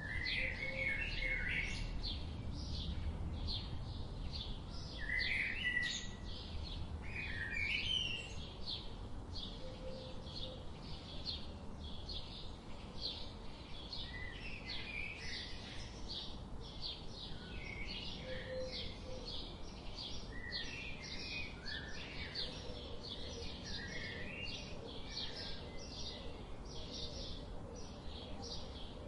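Birds chirping: a steady run of short, high chirps, about three a second, with lower sliding calls now and then.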